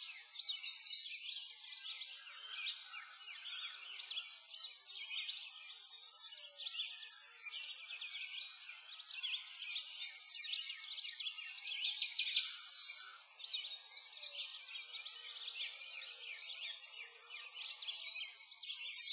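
A chorus of many small songbirds chirping and twittering without pause, with lots of short, quick calls overlapping one another.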